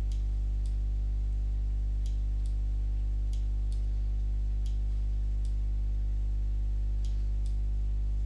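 Computer mouse button clicks, about ten of them, mostly in pairs a fraction of a second apart, as curve points are picked and dragged. Under them runs a steady low electrical hum.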